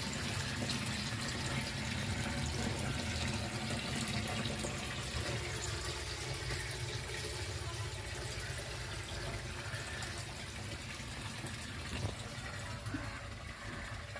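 Steady splashing of water running into a fish tank, the surface kept rippling by the inflow, with one soft knock near the end.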